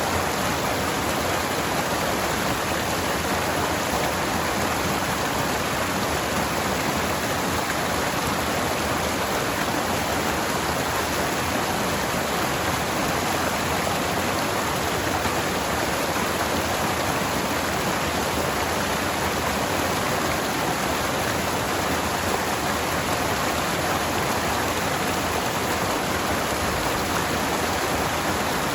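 Forest stream water flowing over rocks, a steady, even rush.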